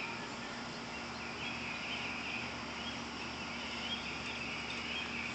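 Outdoor ambience: a bird chirping in quick, repeated high phrases, over a steady low hum.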